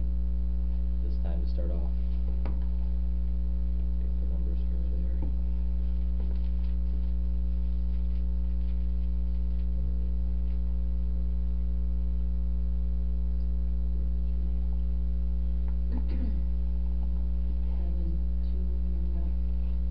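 Steady electrical mains hum, a low buzz with a ladder of overtones, unchanging in level and the loudest thing throughout; a few faint murmurs of voices lie under it.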